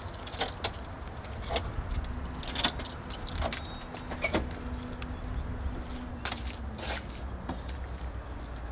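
Keys jangling and a padlock clicking as it is worked open on the metal hasp of a bus's side door, a run of short sharp clicks and rattles, then the door latch as the door is swung open.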